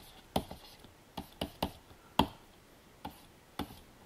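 Irregular sharp clicks and taps of computer input at a digital drawing desk, about ten in four seconds, the loudest just past halfway.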